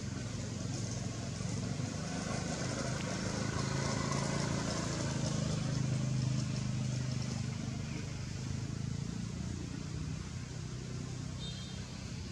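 A motor vehicle's engine hum passing, swelling to a peak around the middle and fading away toward the end, over steady outdoor background noise.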